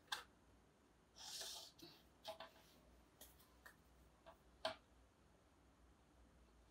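Near quiet, broken by a few sharp clicks and taps, the loudest just after the start and about two-thirds through, and one short soft hiss about a second in: the handling of plastic drawing tools such as a ruler or set square at a small whiteboard.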